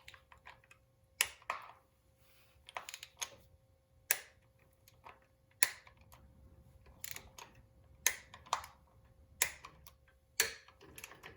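Sharp, irregular clicks, about one a second, from a ratcheting torque wrench tightening the primary chain inspection cover bolts to 70 inch-pounds.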